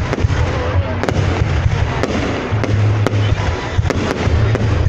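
Fireworks going off in a continuous barrage: a dense, irregular run of sharp bangs and crackles over a loud low rumble.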